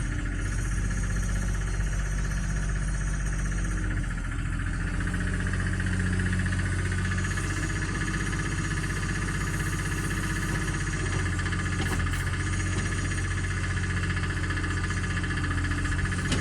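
Komatsu excavator's diesel engine running steadily while the machine works, with a steady high whine above the engine note.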